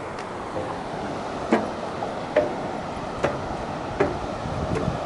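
Footsteps on a metal-decked footbridge: a walker's evenly spaced knocks, about six of them a little under a second apart, over a steady background rush.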